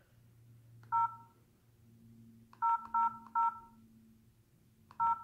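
LG 442BG flip phone keypad tones as its navigation keys are pressed: short beeps, each two steady notes sounding together. One comes about a second in, three quick ones follow around the middle, and another comes at the very end.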